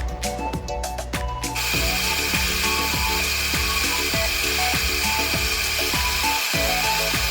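An electric stand pet dryer starts blowing about a second and a half in and runs with a steady, loud rushing hiss, over background music.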